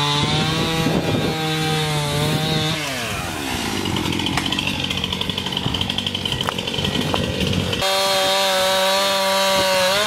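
Stihl MS271 two-stroke chainsaw running at high revs, its pitch falling away as the throttle is let off about three seconds in. It runs lower and uneven for a few seconds, then is back at steady high revs near the end.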